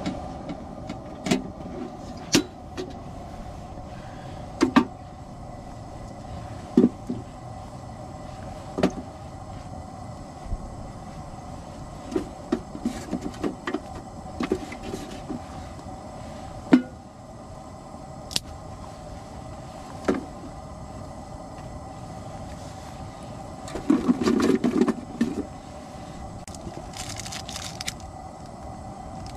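Firewood being split by batoning, a knife struck through the wood with a baton: sharp wooden knocks every couple of seconds, a quick run of them in the middle and a denser flurry near the end, over a steady background hum.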